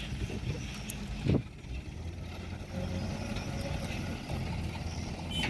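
Heavy diesel engine of an excavator or dump truck running steadily at a low hum, with a single sharp thump about a second in.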